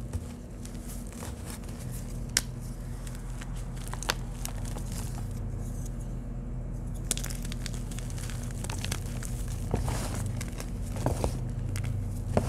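Dyed reformed chalk crumbling and crunching as hands squeeze blocks and rub through loose powder, with a few sharp crackles as pieces break, over a steady low hum.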